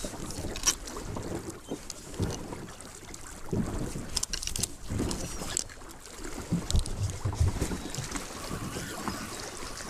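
Wind buffeting the microphone over a choppy sea lapping at a small wooden boat, with irregular knocks and low thumps from the boat as it rocks.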